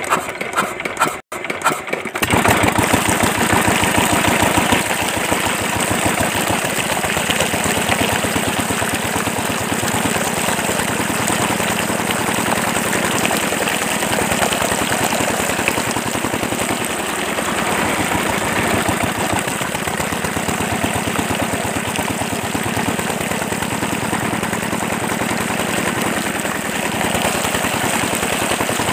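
Small stationary diesel engine cranked by hand, catching about two seconds in and then running steadily with a fast, even chugging.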